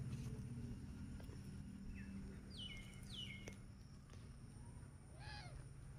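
Faint bird calls: a few quick falling chirps in the middle, then an arched, rising-and-falling call near the end, over a steady low hum.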